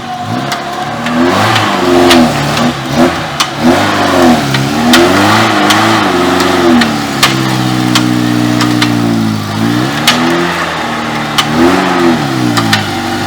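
Off-road vehicle's engine revving up and down again and again under throttle, with sharp knocks and clacks scattered throughout.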